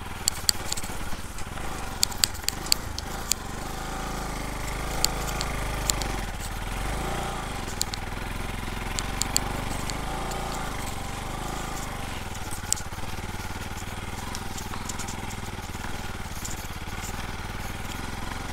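Motorcycle engine running steadily at low speed over a rough dirt track, with scattered sharp clicks and knocks, most of them in the first few seconds.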